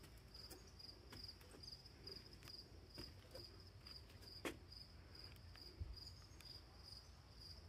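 Faint, steady chirping of an insect, high-pitched pulses about twice a second, with a couple of soft clicks.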